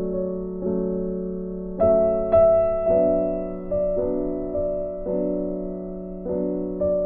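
Background piano music: slow, sustained chords struck about once a second, each ringing on until the next.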